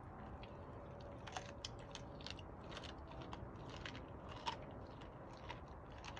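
A Doberman chewing a raw, skinned squirrel: irregular crunches and clicks of teeth on flesh and bone, the sharpest about four and a half seconds in.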